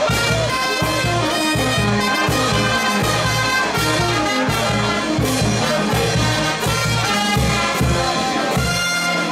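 Andean brass band playing a lively carnival dance tune, trumpets and trombones carrying the melody over low bass notes pulsing in a steady beat.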